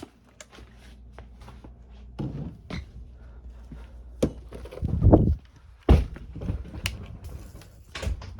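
A series of knocks and thumps, the loudest a heavy thump about five seconds in and another about six seconds in, over a low steady hum.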